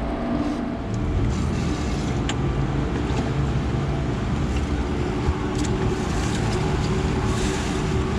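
Steady low engine hum with faint steady tones, broken by a few light clicks.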